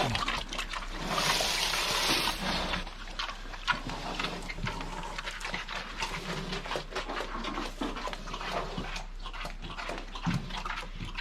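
Pigs eating grain: many small crunches, clicks and snuffles at the feed. About a second in, a short rushing noise lasting under two seconds.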